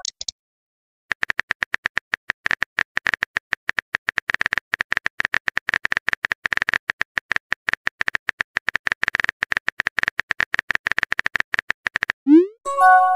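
Rapid, irregular keyboard-tap clicks from a texting app's typing sound effect run for about eleven seconds. They stop near the end, followed by a short rising swoop and a chime, the new-message notification sound.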